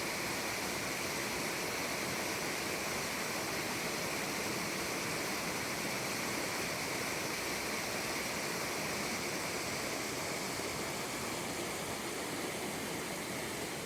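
Mountain stream rushing steadily, a constant hiss of running water.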